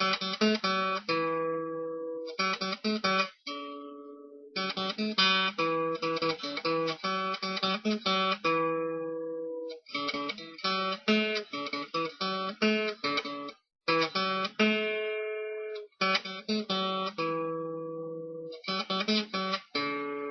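Intro music: acoustic guitar playing, plucked notes and strums.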